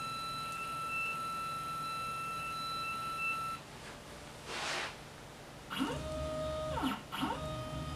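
Stepper motors of a Mostly Printed CNC: a steady high-pitched whine stops about three and a half seconds in, a brief whoosh follows, and from about six seconds in the motors drive the gantry in several short moves, each sweeping up in pitch, holding a steady tone, then sweeping down as they accelerate, cruise and decelerate.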